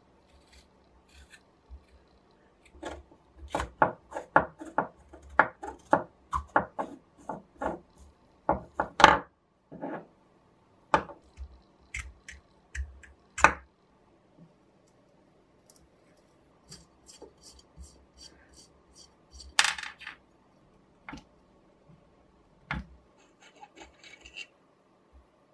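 Handling noises from taking apart an old electric soldering iron: a quick run of scrapes and clicks as the brass collar is twisted and worked along its wooden handle, then scattered sharp knocks, a longer scrape and small taps of metal parts.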